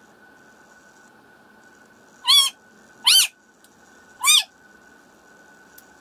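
Three short, loud animal calls about a second apart, each rising then falling in pitch.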